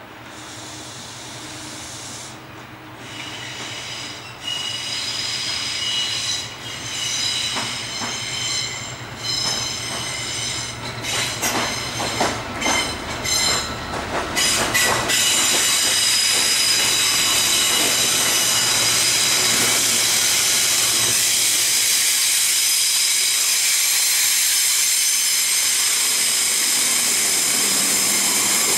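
A rail head treatment train led by a Class 68 diesel-electric locomotive approaches round a curve with a steady high wheel squeal, then clicks and knocks over the rails and points. From about halfway it is passing close by, a loud steady hiss and rumble of the locomotive and its tank wagons.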